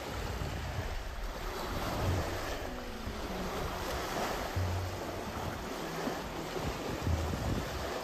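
Lake waves and wind, with irregular low buffeting of wind on the microphone. Faint background music with a few held low notes underneath.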